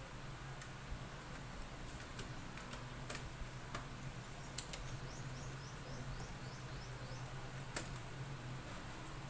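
Scattered light clicks and taps of small parts being handled while working on an open laptop, with one sharper click near the end. A faint run of quick high chirps comes midway.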